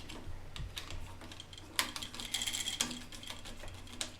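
Small scattered clicks and taps as a new wall light switch and its wires are handled while being attached, with a sharper click about two seconds in.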